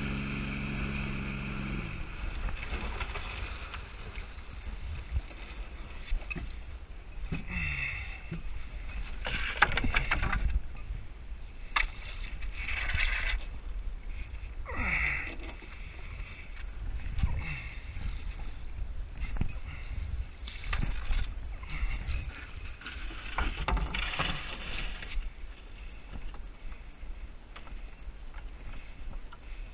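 A canoe's outboard motor hums at low speed and cuts off about two seconds in. After that, wind rumbles on the microphone and water moves around the hull, with several louder rushes of noise.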